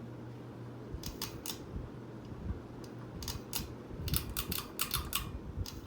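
Hunter Coastal Breeze Plus ceiling fan running with a steady low motor hum, with irregular sharp clicks from about a second in that come thicker in the second half.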